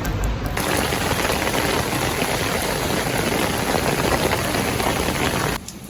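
Heavy rain pouring down in a dense, even hiss. It starts abruptly about half a second in and cuts off suddenly near the end.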